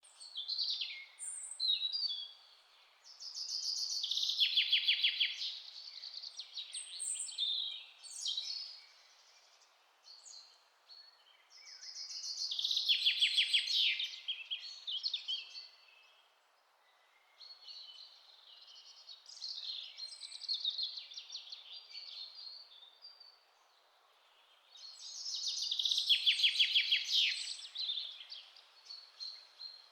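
Forest birds singing and chirping, with a loud, fast trilling song coming back about every ten seconds between softer chirps, over a faint steady hiss.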